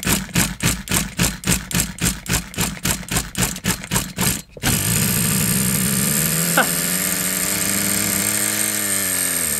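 Vintage HPI Rush's small glow-plug nitro engine, warmed up with a glow starter fitted, being turned over in quick regular strokes, about four to five a second, then catching about four and a half seconds in and running on steadily, its speed wavering slightly near the end. The old engine, which the owner feared had no compression, fires and runs.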